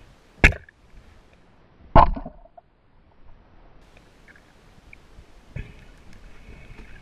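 Speargun shot underwater, heard through the camera housing: two sharp knocks about a second and a half apart, the second louder with a brief ringing tail, and a fainter knock near the end.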